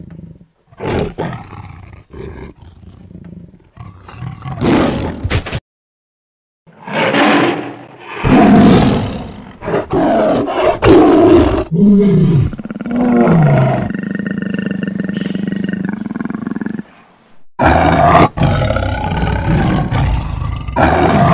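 Tiger roars and growls, laid on as a sound effect, in several long loud stretches from about seven seconds in, two of them falling in pitch. Before that come a few sharp knocks and a second of silence.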